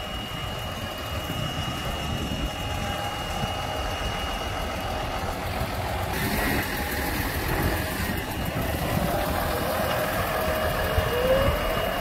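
Massey Ferguson loader tractor's diesel engine running close by while it handles round bales, with a faint steady high whine. The engine's pitch rises briefly near the end as it revs.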